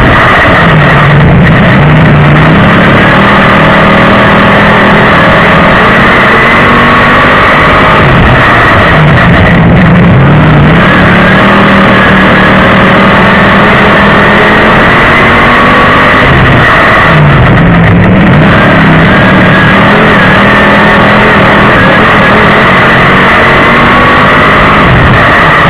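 Dirt-track crate Sportsman race car's V8 running hard under racing load, heard from the cockpit, loud and distorting. The revs dip and climb back about every eight seconds as the driver lifts for each end of the track and gets back on the throttle.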